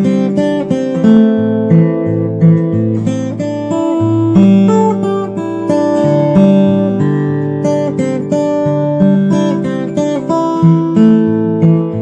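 Solo fingerstyle acoustic guitar playing a melody over a moving bass line.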